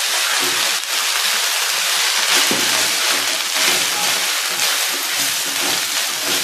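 Cooked rice sizzling in hot oil and cumin seeds in a non-stick kadhai, a steady frying hiss, while a wooden spatula stirs and turns it with soft, irregular scraping knocks.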